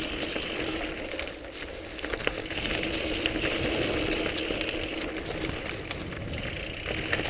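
Mountain bike riding a dirt trail covered in dry leaves: steady tyre noise with small rattles and clicks from the bike over bumps.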